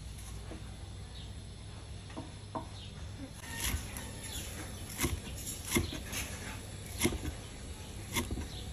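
Steel cleaver chopping green onions against a round wooden chopping board: faint cuts at first, then from about three and a half seconds in a series of sharp knocks, roughly one a second.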